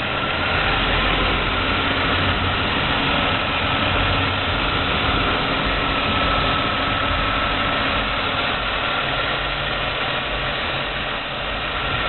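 Buick 3800 V6 engine idling steadily, with a constant thin whine over the running noise.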